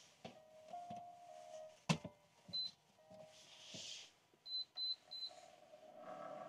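Portable induction cooktop beeping as it is switched on and its touch buttons are pressed: a sharp click about two seconds in, a single high beep, then three quick beeps, over soft background music.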